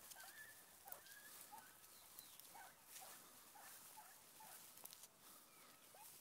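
Beagle puppies yelping faintly and repeatedly, short high cries coming irregularly every half second or so, as hounds giving tongue on a hare. Light brushing and rustling of dry grass underneath.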